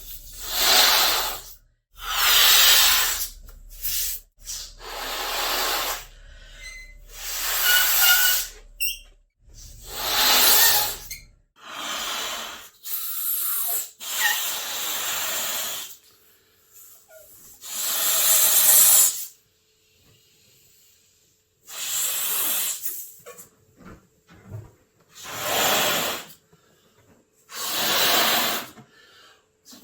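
Balloons: a series of separate hissing rushes of air, each about one to two seconds long, with short squeaks of stretched rubber near the start and about eight seconds in.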